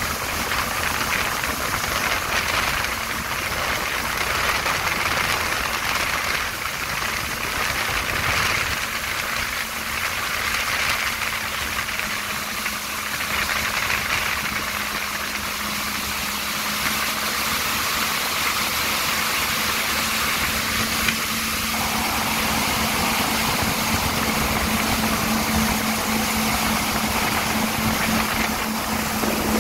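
Yamaha VX1100 jet ski's four-stroke engine running steadily at towing speed, mixed with the rush and spray of its wake. The engine hum grows a little stronger about two-thirds of the way through.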